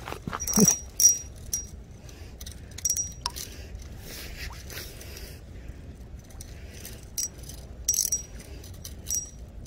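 Small metallic clicks and clinks from the ice-fishing tackle, some with a brief high ring, coming irregularly while a hooked trout is being reeled up through the ice hole. A soft rustling stretch comes about halfway through.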